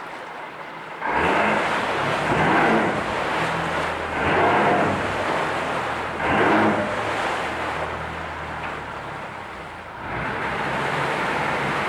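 Yamaha F115 four-cylinder four-stroke outboard in forward gear, revved up in four throttle bursts about two seconds apart, each easing back, then held at a steady higher speed near the end; it picks up quickly, showing good throttle response.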